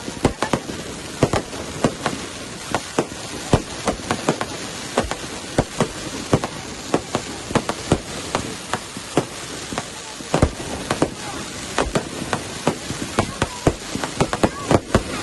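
Fireworks going off: an irregular run of sharp bangs and cracks, several a second, over a steady background hiss.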